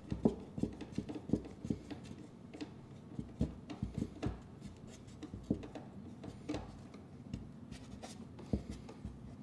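Irregular light knocks and scrapes of hands working a ready-to-assemble cabinet drawer, fitting and fastening its front to the drawer box.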